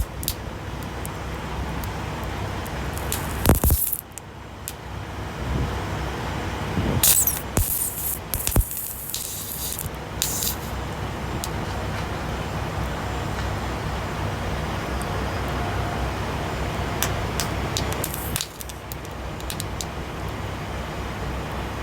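Several short hissing bursts, the loudest about three and a half seconds in with a sharp knock, then more from about seven to ten seconds and near eighteen seconds, over a steady low rumble.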